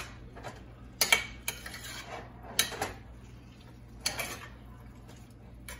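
Metal stirring utensil clinking and scraping against a stainless steel frying pan while pieces of raw pork with garlic and onion are stirred: about half a dozen sharp clinks at uneven intervals.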